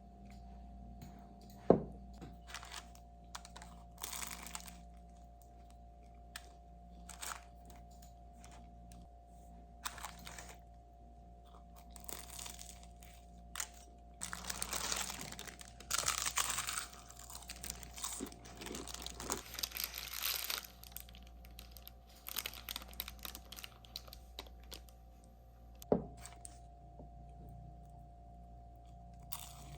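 Close handling sounds in a small room: scattered light clicks and taps, with a stretch of rustling and crinkling in the middle. Two sharper knocks stand out, one about two seconds in and one near the end, over a faint steady hum.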